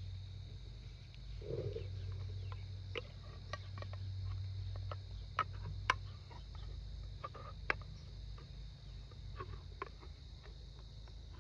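Multi-tool can opener blade levering and cutting its way around a tin can lid: irregular sharp clicks and scrapes of metal on metal, with a steady low hum underneath.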